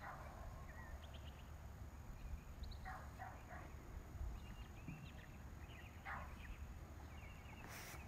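Faint outdoor ambience: a dog barks a few times, about three seconds in and again about six seconds in, with small bird chirps over a low rumble.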